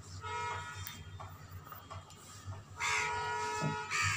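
A crow cawing several times, harsh pitched calls, the loudest coming near the end.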